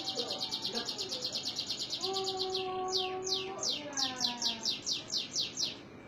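Domestic canary singing: a fast trill of quick downward-sweeping high notes, a short break about three seconds in, then a slower run of descending notes that stops just before the end.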